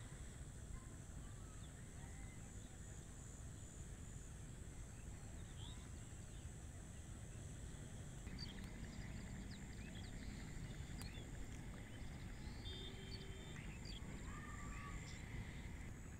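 Open-air rural ambience: a steady low background rumble with scattered short bird chirps and whistles, busier in the second half.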